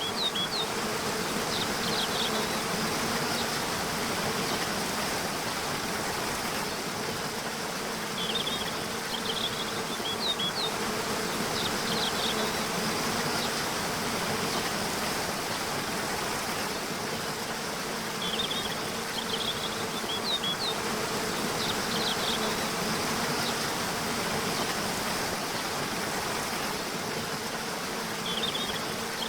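Waterfall rushing steadily under a constant low buzz, with clusters of a bird's short high chirps returning about every ten seconds.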